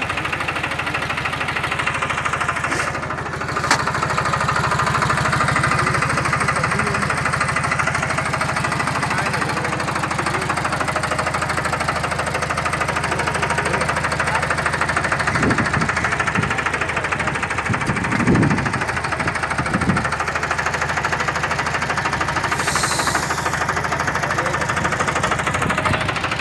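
Captain 250 DI mini tractor's diesel engine idling steadily close by, with a few low bumps in the second half.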